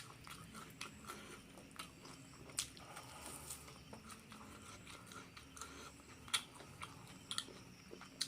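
A person chewing and biting into crispy fried duck and rice close to the microphone, with scattered sharp crunches and mouth clicks.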